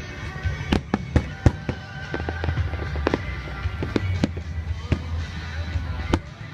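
Fireworks display, with aerial shells bursting in about a dozen sharp bangs at irregular intervals over a continuous low rumble, and music playing underneath.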